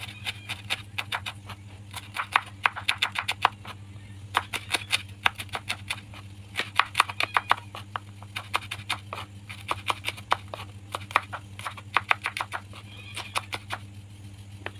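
Knife slicing shallots thinly on a cutting board: quick runs of sharp taps, several a second, broken by short pauses.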